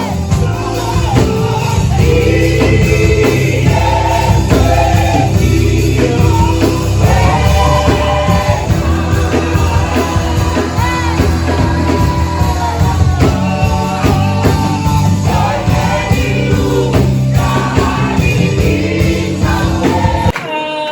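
Music: a song with singing over a band with bass and drums, which cuts off shortly before the end.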